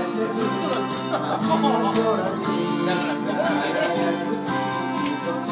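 Karaoke music playing steadily, with people's voices over it.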